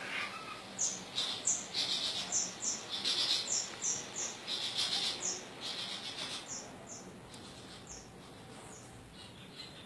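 Long-tailed shrike (pentet madura) singing a quick series of short, high, sharp notes that thins out and fades near the end.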